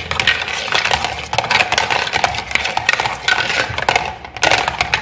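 Rapid clattering and clicking of stirring in a small plastic toy pot: many quick, sharp knocks and rattles.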